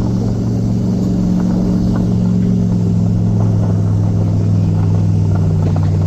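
A motor vehicle engine running at a steady speed, giving a constant low drone.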